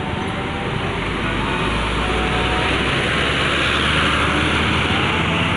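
Road traffic going by: the steady roar of tyres and engines, with a deep rumble and hiss swelling about halfway through as a heavy vehicle passes.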